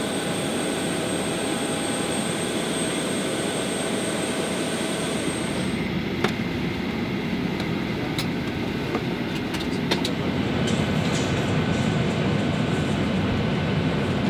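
Steady airliner noise on the ground: a rushing roar with a high whine over it that stops about six seconds in. After that comes the even rush of the cabin's air conditioning, with a few light clicks.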